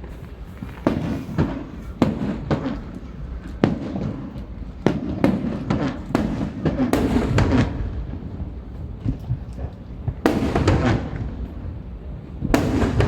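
Fireworks display: a rapid series of aerial shells bursting with sharp bangs, each trailing into crackle, the loudest burst near the end.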